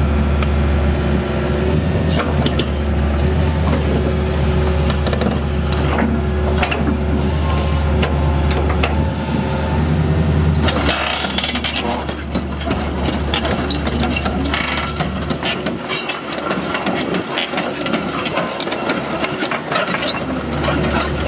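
The Isuzu six-cylinder diesel engine of a 2006 John Deere 225C LC excavator running steadily, held at medium speed, the only speed it will run at because of electrical issues. About halfway through the deep engine hum drops away and a rattle of clicks and knocks takes over.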